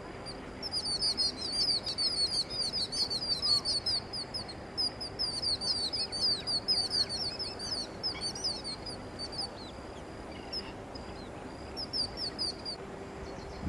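A bird chirping: a fast run of high, repeated chirps, densest in the first half, then thinning to a few short bursts near the end.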